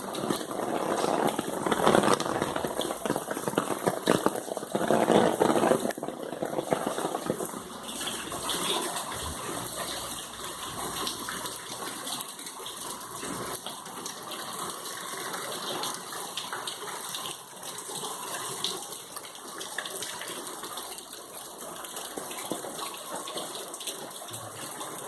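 Water gushing and splashing, with two louder surges in the first six seconds, then a steadier rush.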